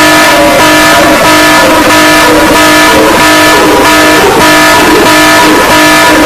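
Loud, harsh emergency-alert alarm tones: several steady pitches sounding together, breaking off briefly and coming back about once a second, under a rough noisy hiss.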